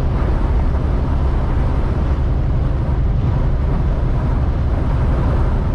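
Strong crosswind howling around a moving semi-truck's cab, heard from inside as a steady rushing over a constant low rumble of engine and road.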